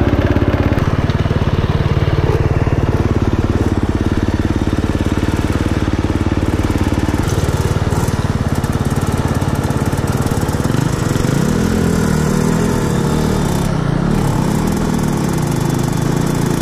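Dirt bike engines running steadily, close up. From about eleven seconds in, the engine pitch rises and falls again and again as the throttle is opened and closed.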